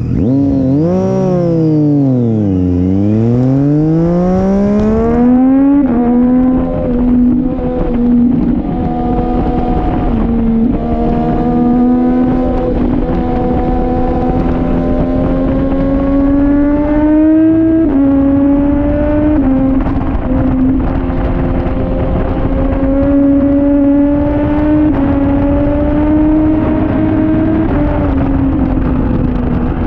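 Triumph Daytona 675R's inline-three engine on track. The revs fall over about three seconds, as when slowing for a corner, then climb back. After that they hold high for a long stretch, with slow rises and a few small drops in pitch, under a steady rush of wind noise.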